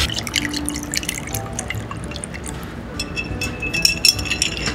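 Shochu and green tea poured over ice into two glass beer mugs, with ice clicking against the glass. About three seconds in, a long spoon stirs the ice in the mugs, making ringing clinks.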